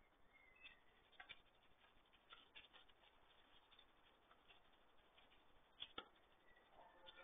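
Near silence with faint scattered clicks and ticks, and two sharper clicks close together about six seconds in.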